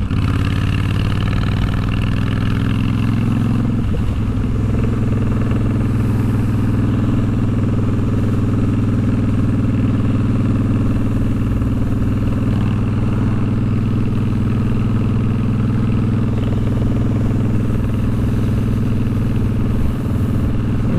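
Honda VTX1300's V-twin engine running while the motorcycle is ridden. The engine note shifts about four seconds in, then holds steady.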